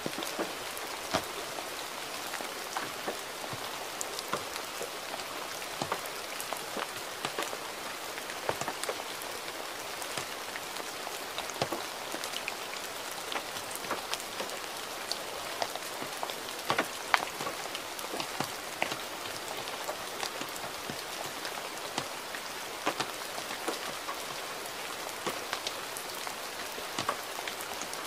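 Gentle, steady rain: an even hiss with many separate drops tapping sharply, scattered irregularly through it.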